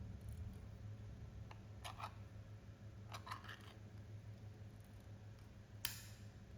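Faint scattered clicks and light taps, with one sharper click near the end, over a low steady hum.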